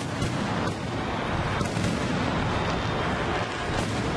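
Aerial fireworks bursting overhead: several sharp bangs at uneven intervals over a steady loud din.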